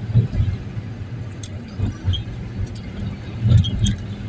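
Low rumble of a moving vehicle heard from inside the cabin, with uneven bumps and a few light clicks and rattles.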